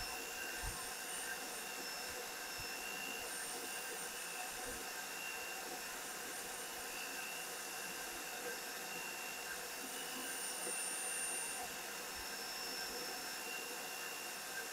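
Motor of a homemade boring tool running steadily with a thin, constant whine as its cutter bores into a Honda Dio scooter's crankcase.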